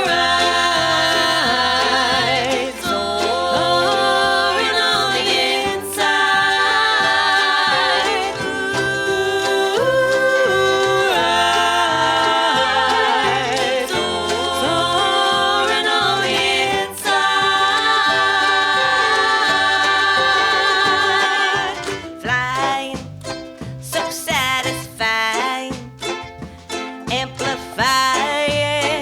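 A band playing a song live with ukulele, a long held, wavering melody line over a pulsing bass. About three-quarters of the way through, the playing turns into short, choppy stabs with brief gaps between them.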